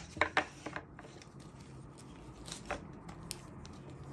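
Small jewellery packaging handled by hand: a thin plastic zip bag and a cardboard box giving a few scattered crinkles and light taps, a cluster near the start and a few more about two and a half to three and a half seconds in.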